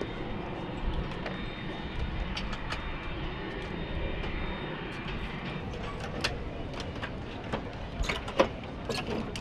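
Steady machinery noise with a faint high, steady whine. Over it come scattered sharp metallic clicks and clanks from weapons-loading gear, thickest in the last few seconds.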